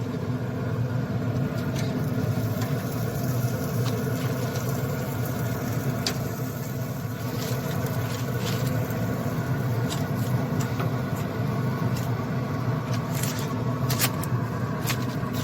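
A steady low motor hum with a few light clicks near the end.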